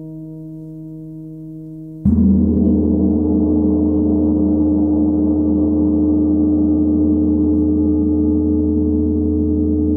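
A large 90 cm forged Tibetan gong is struck once with a soft mallet about two seconds in. It blooms into a deep, dense, shimmering wash of many tones over a low hum, and keeps sounding at a steady level without fading. Before the strike, a few steady tones are fading out.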